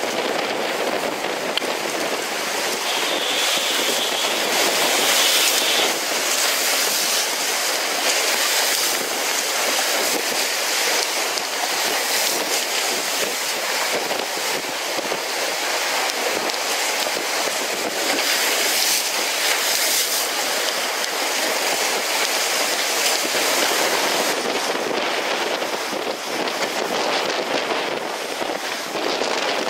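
Steady rushing of water along the hulls of a Tricat 25 Evolution sailing catamaran moving fast through choppy sea, mixed with strong wind buffeting the microphone.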